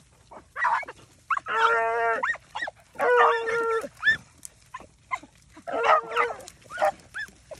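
Beagles baying while running a swamp rabbit: two long, drawn-out bawls, with several shorter, choppy barks between and after them.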